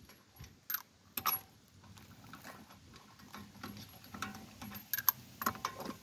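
Scattered light metallic clinks and clicks, about six of them, as hand tools and parts are handled.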